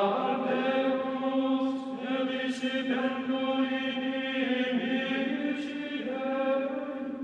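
Sacred choral chant as soundtrack music: voices singing slow, long-held notes, the pitch changing only every second or two.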